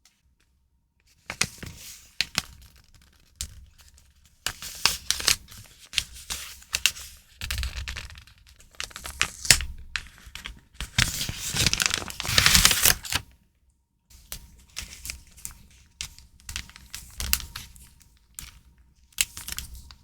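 Paper and plastic stationery packaging being handled and crinkled, with small taps and clicks in between; a louder, longer stretch of crinkling comes about eleven to thirteen seconds in.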